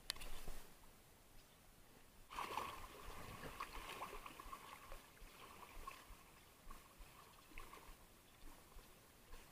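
Small waves washing up and sloshing over a sloped concrete ramp at the water's edge, loudest about two seconds in, then slowly settling. A brief sharp knock at the very start.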